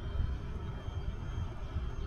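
Wind buffeting the microphone, with the faint, steady, high whine of a small RC jet's 30 mm electric ducted fan.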